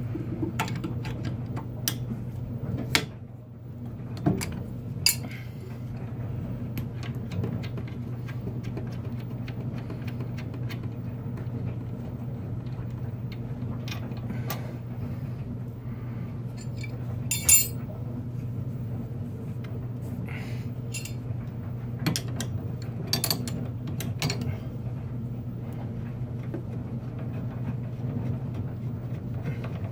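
Wrenches clinking and clicking on a circulating pump's flange bolts as they are loosened: scattered sharp metal clicks, the loudest about 17 seconds in, over a steady low hum.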